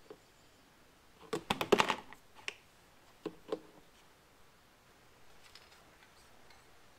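Light plastic clicks and clatter as a plastic funnel and an empty plastic oil bottle are handled: a quick run of clicks, then two sharper clicks about a second later and a few faint ticks near the end.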